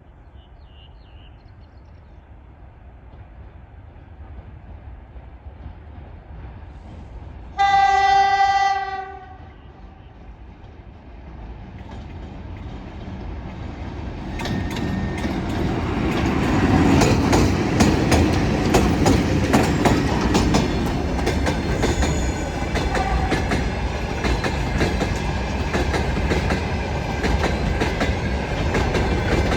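VL80S electric locomotive hauling a freight train: a faint approaching rumble, one loud horn blast of about a second and a half, then the train running past with the rhythmic clickety-clack of its wheels over the rail joints, growing loud a few seconds after the horn and continuing as the wagons go by.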